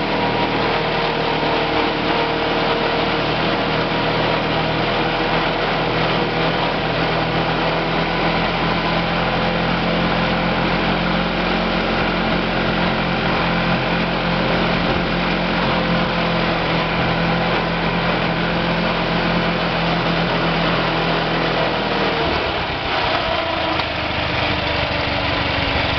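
Engine of a 1938 Viking Standard Twin garden tractor, converted to a riding cart, running steadily under way. Its note changes and falls a little about three-quarters of the way through.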